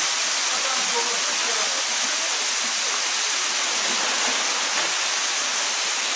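Steady rush of a waterfall pouring into a pool, an even hiss with no change in level.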